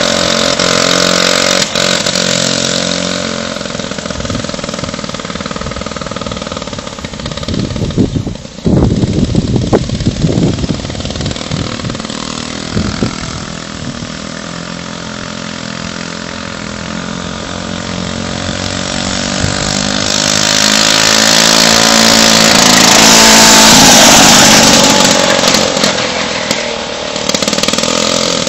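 Clinton two-stroke 3 hp engine in a home-built pedal car running under way, its pitch rising and falling with the throttle. It grows loudest about two-thirds through, then fades, with a short burst of rough rumbling noise about eight seconds in.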